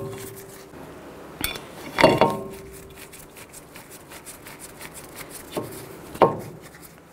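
A Phillips screwdriver driving the retaining screws into a new Honda CR-V front brake rotor: about four metal clinks of screwdriver on screw and rotor. One, about two seconds in, sets the rotor ringing briefly.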